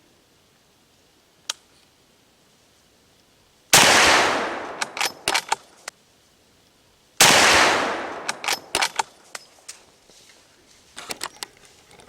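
Shotgun fired twice, about three and a half seconds apart, during a deer hunt. Each very loud shot is followed by a long echo that dies away over a couple of seconds with several sharp reflections. A single sharp click comes about a second and a half in.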